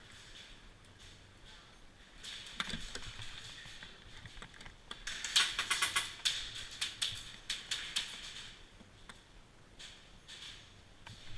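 Irregular sharp clicks and taps, a cluster about two seconds in and a denser run from about five to eight seconds in.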